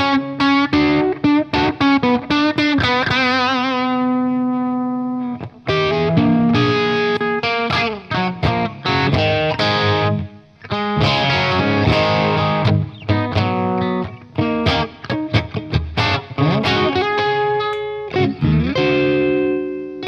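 Electric guitar, a Telecaster-style AcePro with Pribora pickups, played through an Origin Revival Drive overdrive pedal into a VHT amp: picked notes and chords, with a held note given vibrato about three seconds in that rings out before the playing resumes.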